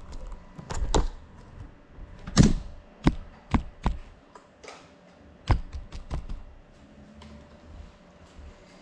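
Scattered knocks, taps and clicks, about a dozen in the first six seconds, the loudest about two and a half seconds in, as a person moves about and handles objects in a small room. A faint steady hum runs underneath.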